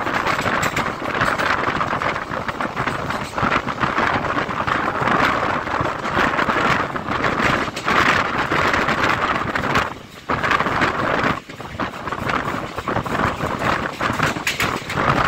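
Moving Indian Railways passenger train heard from its open door: steady wheel-and-rail rumble with scattered clatter and wind buffeting the microphone. The noise drops out briefly twice, about ten and eleven and a half seconds in.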